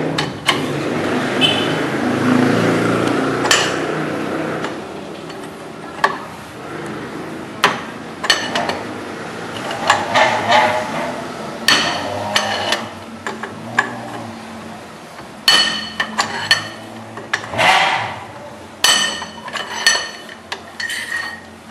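Steel socket and long breaker bar clinking on the rear axle nut of a 1970 VW Variant's drum brake as the nut is worked loose and off. The clinks and knocks are irregular and sharp, some with a short metallic ring.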